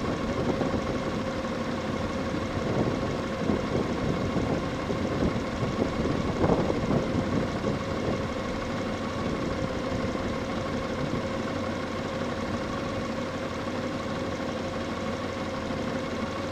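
Motorcycle engine idling steadily while the bike stands still, with a louder, rougher patch about six to seven seconds in.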